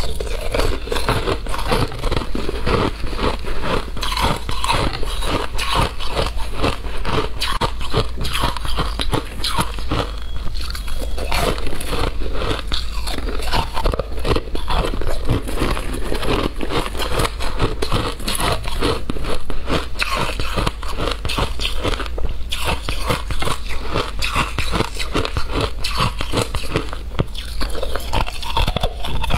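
A person biting and chewing shaved ice and frozen ice chunks close to the microphone: a dense, rapid run of crisp crunches with no pause.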